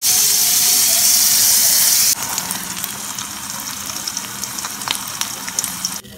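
A steady, rushing hiss, loud for about two seconds, then dropping suddenly to a quieter hiss with scattered clicks and ticks.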